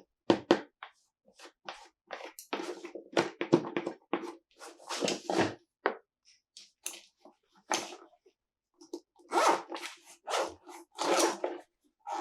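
Hands handling toy packaging: a string of short, separate scratchy rustles and scrapes of plastic and cardboard, with longer bursts around the middle and near the end.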